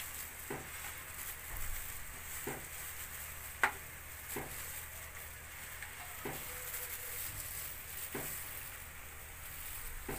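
Pork belly pieces sizzling in a stainless steel pan with soy sauce and a little water, while a spoon stirring them scrapes and knocks against the pan every second or two. The sharpest knock comes a little under four seconds in.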